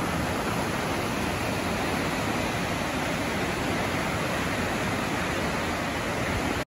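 Steady rushing of a river in heavy flood, fast water breaking over standing waves, with a deep rumble underneath. It cuts off suddenly right at the end.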